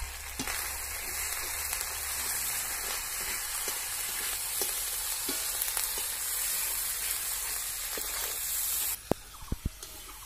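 A spice and onion mixture sizzling in hot oil in an iron kadai while a steel spatula stirs and scrapes through it. The sizzle drops away suddenly near the end, followed by a few sharp clicks.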